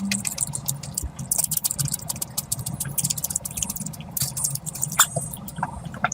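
Close-miked wet chewing and lip smacking, a dense run of quick sticky clicks as a mouthful of food is eaten.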